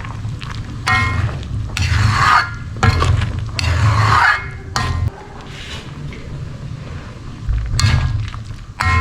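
A spatula scraping and stirring in a cooking pan, several separate strokes in the first five seconds, then quieter.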